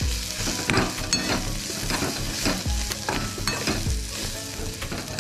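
A metal spoon stirs and scrapes a sizzling onion-tomato masala in a metal pan, knocking against the pan at irregular intervals over a steady frying sizzle. A few of the knocks ring briefly.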